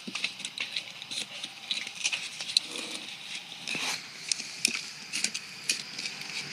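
Irregular light clicks, taps and rustles from hands and a small knife working on a pumpkin, with a faint steady high-pitched sound in the background.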